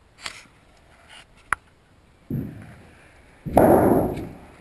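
Handling noise: a few light clicks, then two loud rustling bursts about two and three and a half seconds in, the second the loudest and fading over about a second.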